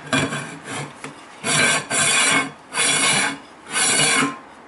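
Stainless-steel lid of a high-speed grinding mill seated with a few clicks, then twisted shut on the bowl in four separate metal-on-metal scrapes, each about half a second long.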